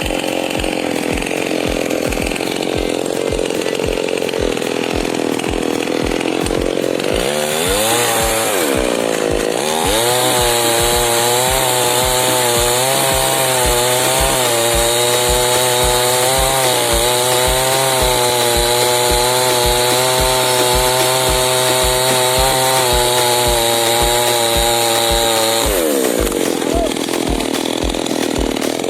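Chainsaw running, revved up about a third of the way in and held at high speed for a long stretch before dropping back to a lower speed near the end. A regular low thump runs underneath.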